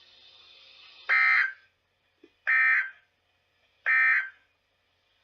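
NOAA Weather Radio broadcast sending its EAS/SAME end-of-message code: three short, identical bursts of screechy digital data tone about a second and a half apart, marking the end of the weekly test message. Faint radio hiss comes before the first burst.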